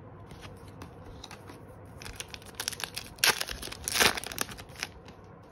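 Foil Pokémon card booster pack crinkling and being torn open by hand, starting about two seconds in, with two loud rips about three and four seconds in.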